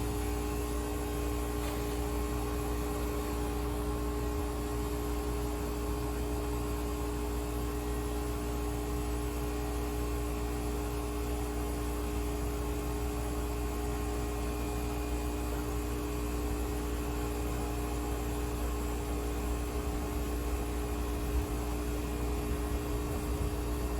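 Steady electric hum with a low rumble underneath: the smoke leak detector's small air pump running, pushing smoke into the intake to test for vacuum leaks.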